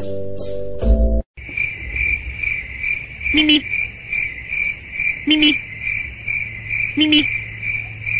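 Pizzicato string music for about a second, then after a short break a steady high cricket-like chirping, pulsing about two and a half times a second, with three short lower tones about two seconds apart.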